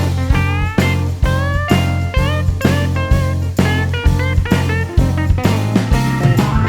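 Background music: a blues-style band track with electric guitar bending notes over a steady bass line and drum beat.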